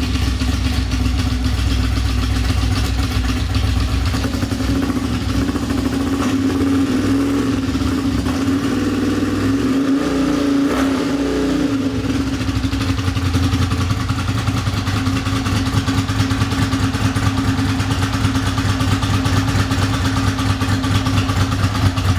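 1979 Honda CX500's V-twin engine running at idle through tulip pipes, just after being started, its note unsettled for a few seconds in the middle before settling again.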